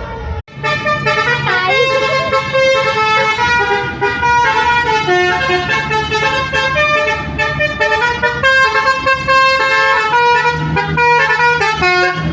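Indonesian 'telolet basuri' multi-tone bus horn playing a quick tune of overlapping horn notes that step from pitch to pitch, with a brief dropout about half a second in.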